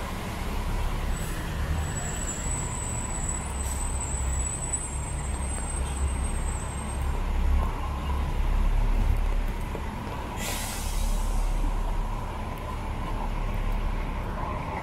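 Steady rumble of city traffic on wet pavement, with a city bus's air brakes letting out a sharp hiss about ten seconds in.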